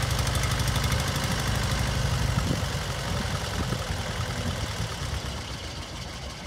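John Deere 430T tractor's two-cylinder engine running steadily, then about two and a half seconds in dropping to a slower, uneven idle and growing steadily quieter.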